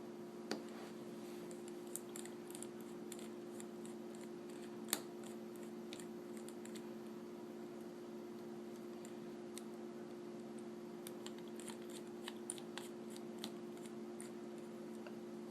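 Small Phillips screwdriver unscrewing a tiny screw from an iPhone's logic board: scattered light clicks and ticks of the tool on metal and plastic, two slightly louder ones about half a second and five seconds in, over a steady low hum.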